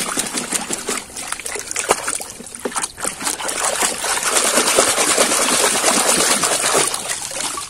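Foamy, muddy water sloshing and splashing in a tub as a hand swishes and scrubs a plastic toy train in it, with many small wet splashes and drips.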